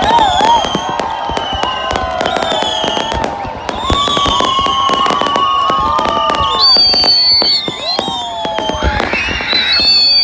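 Fireworks display going off: a dense run of sharp cracks and bangs, overlaid with many whistling tones that each hold for a second or two while sliding slowly down in pitch.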